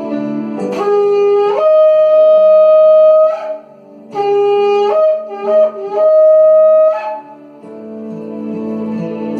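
A shofar blown twice, each blast starting on a low note, breaking up to a higher note and holding it; the second blast stutters briefly before its held high note. A soft sustained music pad plays underneath.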